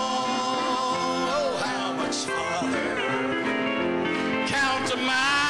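A man singing a gospel hymn with piano accompaniment, holding long notes with vibrato and starting a new phrase near the end.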